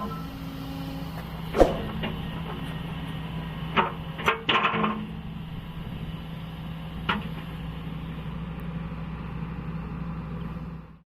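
Excavator's diesel engine running steadily at idle, with several sharp metallic knocks and clunks over it: one about a second and a half in, a cluster around the middle, and one more near the end.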